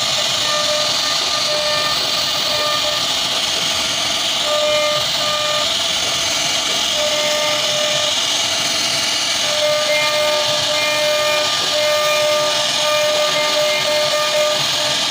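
Wood CNC router spindle running and cutting, a steady high hiss and whine with a pitched tone that comes and goes as the bit moves through the wood.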